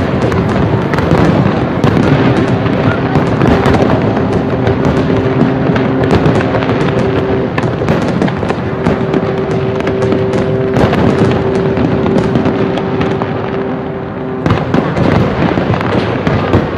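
Fireworks display: a continuous dense crackle and popping of aerial shells bursting, with steady held tones running underneath. There is a brief lull about fourteen seconds in, then the bursts pick up again.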